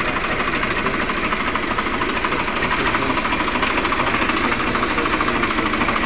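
Sonalika 745 tractor's diesel engine running with a steady, fast, even beat.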